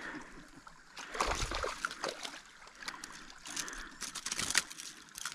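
Water splashing and trickling as a caught fish is held and moved in the shallows, in two spells of small splashes, about a second in and again just past the middle.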